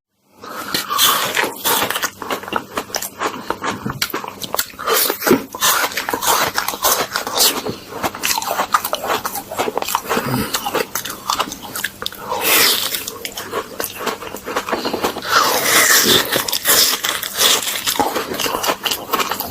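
Close-miked eating of ice cream: repeated bites and chewing, with crunching and a dense, irregular run of small clicks, and a few longer crunchy bursts.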